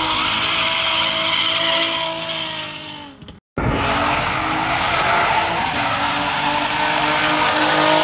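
Drift cars sliding sideways with tyres screeching and engines held at high revs. The sound fades and drops out about three and a half seconds in, then picks up again with another car drifting.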